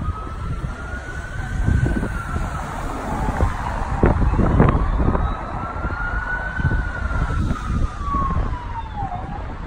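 Emergency-vehicle siren wailing, its pitch rising and falling slowly, about two cycles over several seconds. Wind rumbles on the microphone throughout, and two sharp knocks come near the middle.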